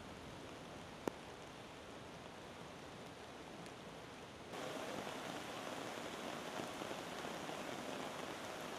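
Steady hiss of heavy rain, jumping louder about halfway through, with a single sharp click about a second in.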